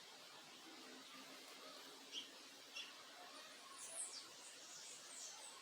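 Small backyard birds calling faintly: a few short high chirps, then quick whistled notes that fall steeply in pitch, over a faint steady hiss.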